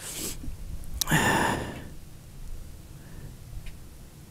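A man's heavy breath out, about half a second long, about a second in, just after a sharp click, with a shorter breath at the start.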